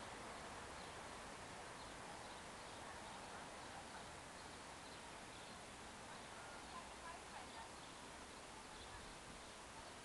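Faint outdoor ambience: a steady background hiss with scattered faint bird chirps.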